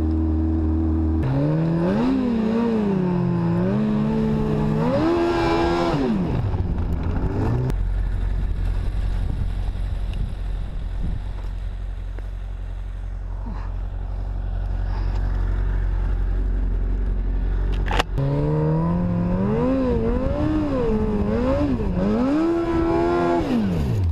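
Electronic dance music with gliding, wobbling synth lines over a steady bass. The gliding section drops out about eight seconds in and returns after a sharp hit at about eighteen seconds.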